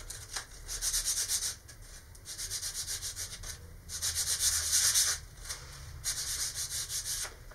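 Cut end of a small spruce strip being rubbed on medium-grit sandpaper: quick back-and-forth sanding strokes, several a second, in four short runs with brief pauses between them, smoothing the sawn end.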